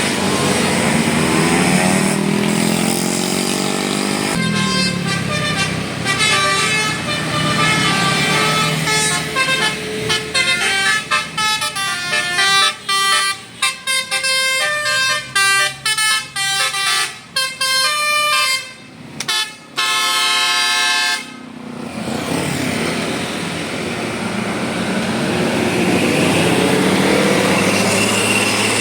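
A bus's telolet Basuri musical air horn playing a long, fast melody of stepped notes, breaking into quick short toots before it stops about two-thirds of the way through. Bus engine and traffic noise run before and after the tune.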